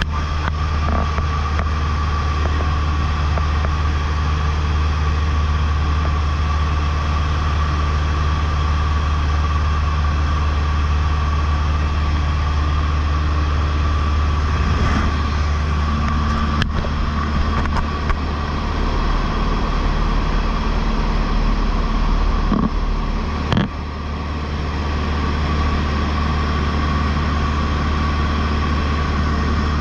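Cessna 152's four-cylinder Lycoming engine and propeller running steadily in cruise flight, a constant drone with a steady high whine above it. There are a couple of brief clicks, the second about three-quarters of the way through with a short dip in loudness.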